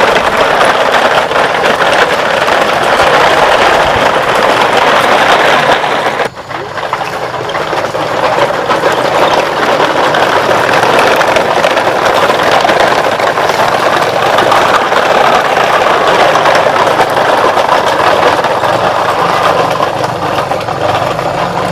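Plastic toy truck's wheels rolling and rattling over rough ground as it is pulled along, a loud steady clatter that breaks off briefly about six seconds in.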